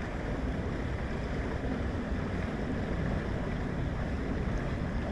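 Steady rush of flowing river current, with a low rumble of wind on the microphone.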